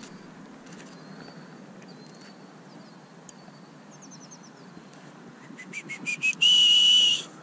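Faint high bird chirps, then a run of quickening, rising short notes leading into a loud, steady high whistle that lasts about a second near the end.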